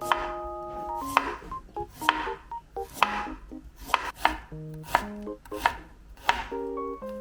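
Knife chopping on a cutting board: about ten sharp strikes, irregularly spaced roughly half a second to a second apart, with light background music underneath.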